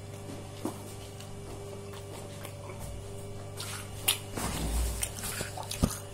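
Food being handled and eaten: wet squishing with sharp clicks, busiest between about four and six seconds in, over a steady low hum.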